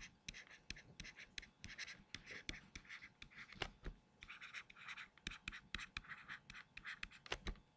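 Faint stylus writing on a tablet screen: irregular light taps and short scratchy strokes as words are handwritten.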